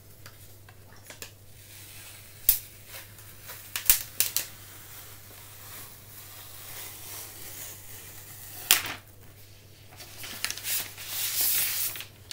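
Hands handling a MacBook Pro and its packaging: a few sharp clicks and taps, then a stretch of paper rustling near the end as the protective sheet is drawn out.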